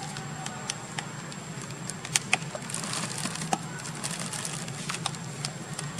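Irregular crackles and rustles of a black plastic rubbish bag being pulled and poked by a young macaque, busiest about halfway through, over a steady low background hum.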